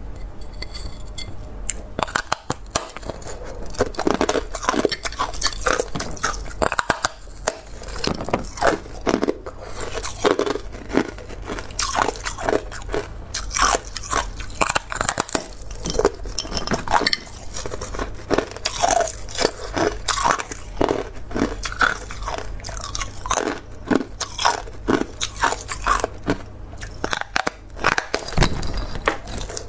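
Hard, pure ice being bitten off a thin frozen disc and chewed: dense, irregular crunches and sharp cracks, starting about a second and a half in.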